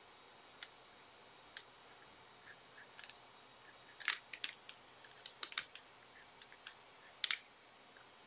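Pencil scratching on paper in short, quick strokes, a few at first, then a busy cluster about four to six seconds in and a sharper pair near the end.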